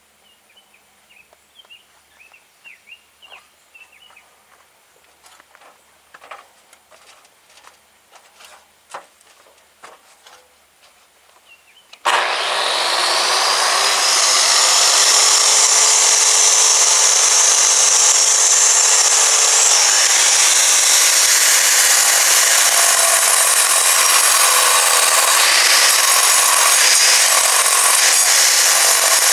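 Scattered light knocks and steps for about twelve seconds, then an angle grinder starts abruptly, winds up over a couple of seconds, and cuts steadily into stone for the rest of the time.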